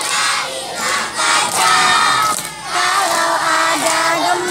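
A group of children singing an earthquake-safety song together in unison, with long held notes.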